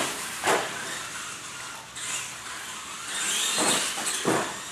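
Radio-controlled monster trucks driving over a shop floor: a steady whirring of motors and gears with tyre noise, and knocks as the trucks hit obstacles and land, about half a second in and twice near the end.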